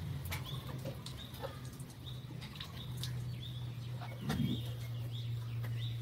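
Small birds chirping again and again over a steady low hum, with scattered clicks and a short low thump about four seconds in.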